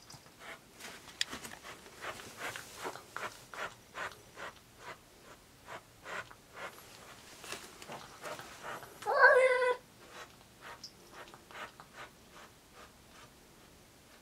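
Domestic cat at a front door facing a stray outside: soft pulsing sounds, about three a second, for several seconds, then one loud drawn-out meow about nine seconds in, a cat calling out at an intruding cat.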